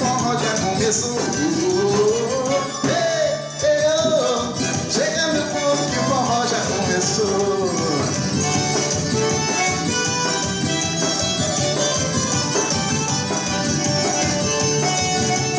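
Forró music in the São João style: a band plays a melody over a steady beat, and the melody fades into steady accompaniment after about eight seconds.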